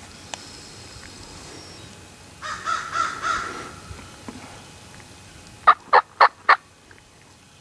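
Wild turkey gobbling, a rattling call about two and a half seconds in, then four sharp turkey yelps about a quarter second apart near the end, the loudest sounds here.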